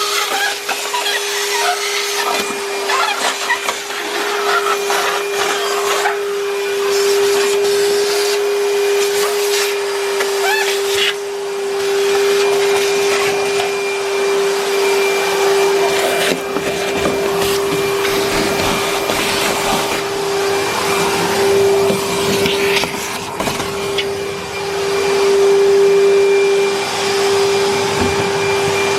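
ToolPRO 35-litre wet and dry shop vacuum running with a steady whine, sucking up dry leaves and debris that crackle and rattle through the hose.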